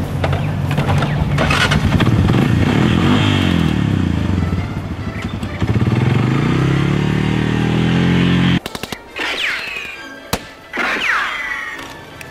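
Quad bike (ATV) engine revving as it rides off, its pitch rising and falling, until it cuts off abruptly about two-thirds of the way through. After that come a few sharp gunshot cracks and two falling whines.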